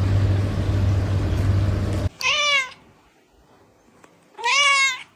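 A steady humming noise for about two seconds that cuts off abruptly, then a domestic cat meows twice, two short calls about two seconds apart, each falling in pitch at the end.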